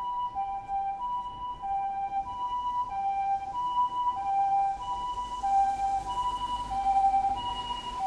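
Japanese ambulance siren sounding its two-tone 'pee-poh', a high and a low note alternating about every two-thirds of a second. It grows louder as it approaches, over the rumble of street traffic.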